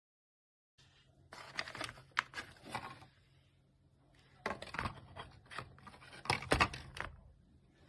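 Irregular handling noise: short clicks, scrapes and rustles in two clusters, over a faint steady low hum.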